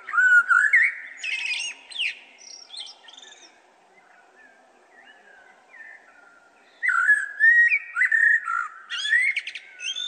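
Male common blackbird singing two phrases, one at the start and another about seven seconds in. Each is a low fluty warble followed by higher squeaky twittering.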